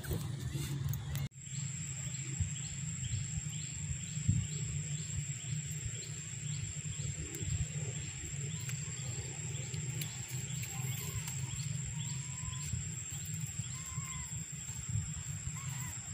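Outdoor ambience that changes abruptly about a second in, then holds a steady high-pitched whine, short chirps repeating about twice a second, and a low rumble. A few brief calls sound in the last third.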